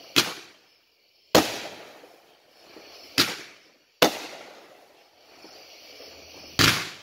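Fisherman Fireworks 'Thumper' 500-gram cake firing its shots: five sharp bangs at uneven intervals, each fading away in an echo.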